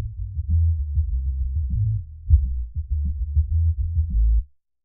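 Drum and bass-line loop played back with only the frequencies at 100 Hz and below soloed on the master bus: the kick drum and bass line sound as low, muffled thumps with nothing above. This is the low-end solo used to listen for muddiness in the mix. Playback stops suddenly near the end.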